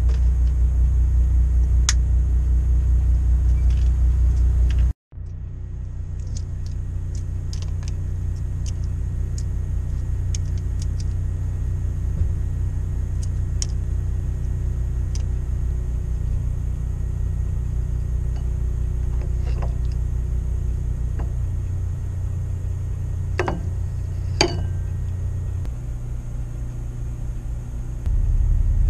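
Steady, loud low rumble of running machinery with scattered light clicks and taps over it. The rumble drops out for an instant about five seconds in.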